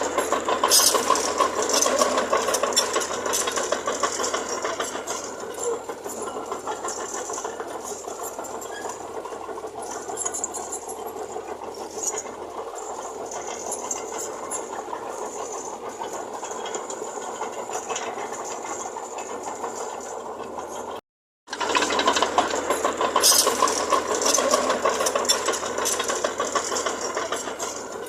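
Heavy diesel earthmoving machinery running steadily, with a busy metallic rattling. The sound cuts out for a moment about three-quarters of the way through, then resumes.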